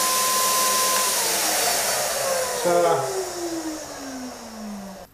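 Electric paint sprayer's turbine unit running with a steady whine and rush of air, about as loud as a Hoover. About a second in it is switched off, and the whine falls steadily in pitch as the turbine spins down.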